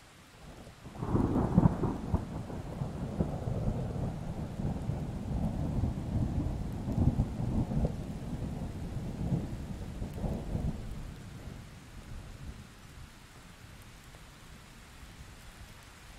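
A long roll of thunder over faint, steady rain. It breaks in suddenly about a second in, rumbles on in several swells for about ten seconds, then fades away, leaving the rain.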